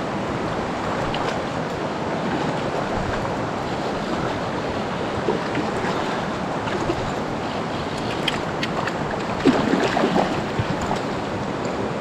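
Steady rush of high-running stream water, mixed with wind buffeting the microphone.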